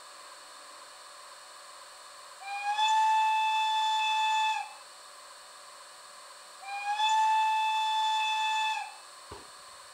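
Electric-train horn from an H0 model train's digital sound decoder, played through its small loudspeaker: two long blasts of about two seconds each, a couple of seconds apart, each sliding up slightly in pitch as it starts. A steady faint hiss runs underneath, with a short click near the end.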